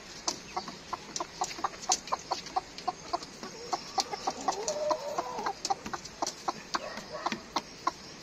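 Chickens clucking: a steady run of short clucks, several a second, with a longer wavering call about halfway through.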